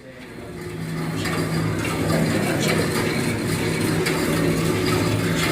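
A motor running with a steady hum that builds up over the first two seconds and then holds even.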